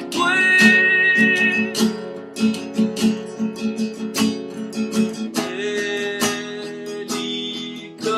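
Acoustic guitar song with plucked and strummed chords. A man's voice holds long sung notes near the start and again in the second half.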